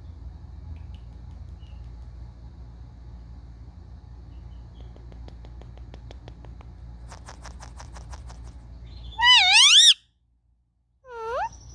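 Indian ringneck parrot: a run of light, rapid clicks, then a loud wavering call about a second long, and a shorter rising call near the end.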